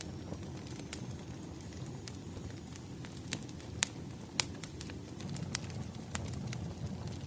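Wood fire crackling: a low steady rumble with sharp pops and snaps scattered through it, a few of them louder.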